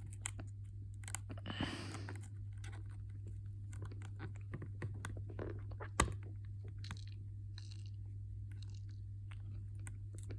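Small irregular clicks and scratches of a metal paperclip picking at the dirt stuck in an iPad's charging port, with a short scrape about two seconds in and a sharper click about six seconds in. A steady low hum runs underneath.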